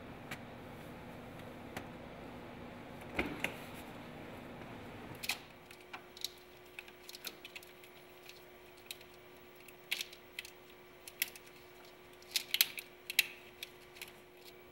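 Hands handling hoses and a plastic-sleeved wiring harness in a car's engine bay: scattered sharp plastic clicks and ticks, with a quick cluster of louder clicks about twelve to thirteen seconds in. Before that, for about five seconds, a steady low hum with a few light clicks.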